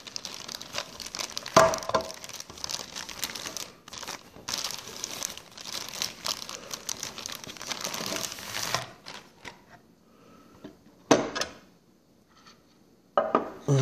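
Thin clear plastic bag crinkling and rustling as it is pulled off a plastic display case, stopping about nine seconds in. Near the end comes a single sharp plastic click as the clear acrylic cover is lifted off the model's base.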